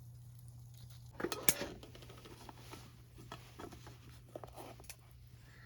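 Light clatter of tableware and utensils: a quick cluster of knocks about a second in, then scattered small taps and clicks, over a low steady hum.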